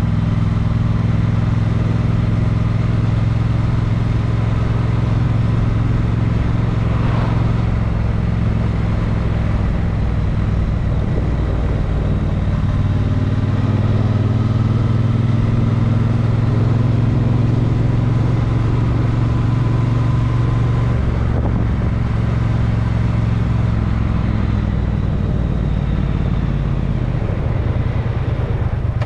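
A road vehicle's engine running steadily while driving, with road noise. The engine note shifts briefly near the end.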